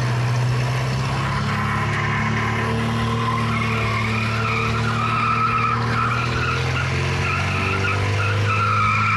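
Four-cylinder engine of a stripped-down Lada buggy running steadily as the car drives slowly; the engine has been rebuilt with three oil rings per piston and no compression rings. A high squeal joins the engine note about three and a half seconds in.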